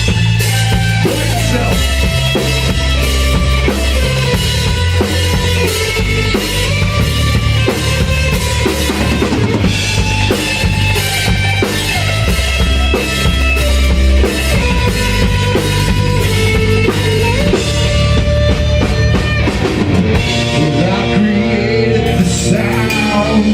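Hard rock music in an instrumental passage, with a full drum kit pounding out a steady beat of bass drum and snare over heavy low notes. About twenty seconds in, the drums drop out and the music thins.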